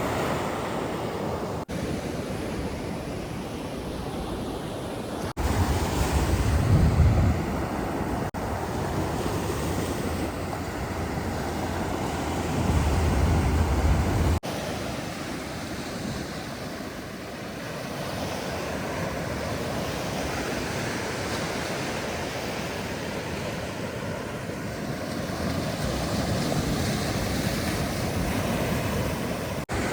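Ocean surf washing on a beach, with wind rumbling on the microphone in gusts, strongest about six and thirteen seconds in. The sound changes abruptly several times.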